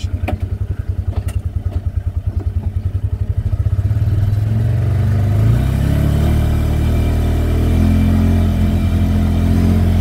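Polaris Ranger 570's single-cylinder engine idling with an even pulse, then revving up about three and a half seconds in and holding a rising drone as the side-by-side accelerates from a standstill.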